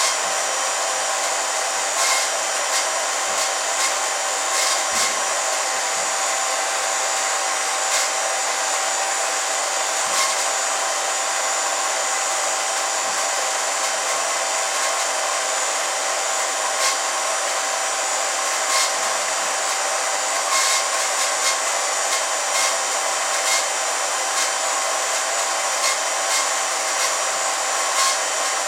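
Home-movie film projector running: a steady motor and fan whir with a constant tone and scattered clicks.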